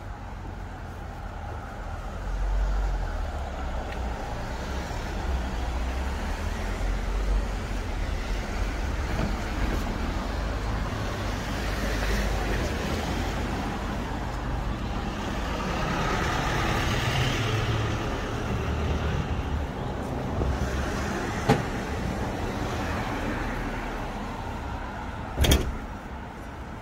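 Cars passing on a city street: a steady low rumble of engines and tyres that swells and fades as vehicles go by, loudest about two-thirds of the way in. A short sharp clack sounds near the end.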